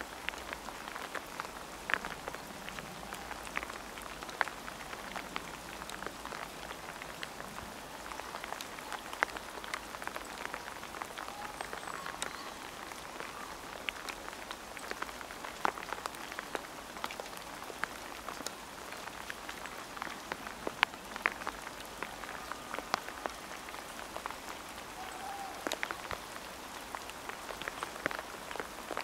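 Rain pattering: many sharp, irregular drop ticks over a steady hiss.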